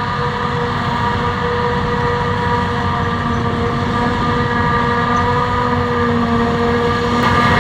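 Heavy farm machinery running steadily under load: a low engine rumble with a steady high whine over it. The sound changes abruptly near the end.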